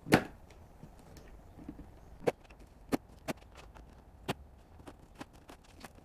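Irregular sharp knocks and clicks from the damaged shipping box and press parts being handled, the loudest right at the start and a few more spread through the rest.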